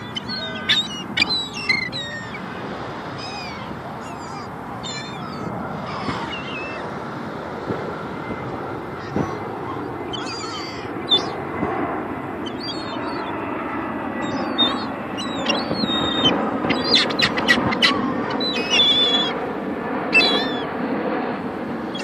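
A flock of gulls calling: many short squawks and cries, some in quick runs, thickest in the second half. Beneath them a steady low rush of background noise grows louder in the second half.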